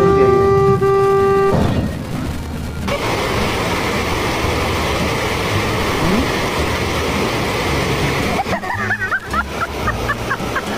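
A car horn holding one steady note for about a second and a half. Then comes a steady rush of water from a surf-simulator wave ride, with a run of short high chirps near the end.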